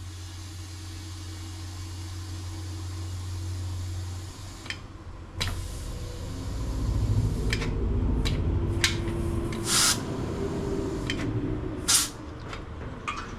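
Compressed air hissing steadily into a freshly mounted motorcycle tire on a tire changer, inflating it, cutting off after about four and a half seconds. Then low rumbling with clicks and knocks, and two short loud blasts of air about two seconds apart near the end.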